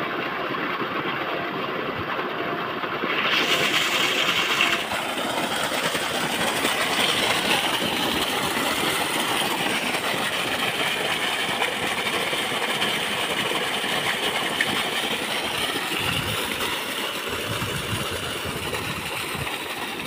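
A 2 hp solar-powered 3×3-inch centrifugal pump running off a variable-frequency inverter, with water gushing from its delivery pipe and splashing onto muddy ground. The rushing-water hiss turns brighter and fuller about three seconds in.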